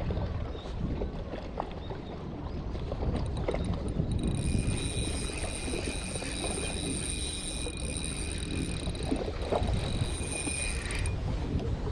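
Outdoor wind rumble on the microphone by the sea. From about four seconds in, a steady high-pitched whine joins it and cuts off suddenly near the end.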